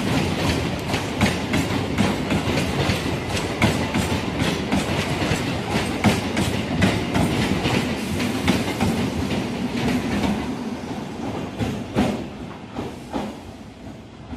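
Coaches of an electric multiple-unit local train rolling past close by, their wheels clattering over rail joints in a rapid, uneven clickety-clack over a steady rumble. The clatter grows fainter in the last few seconds.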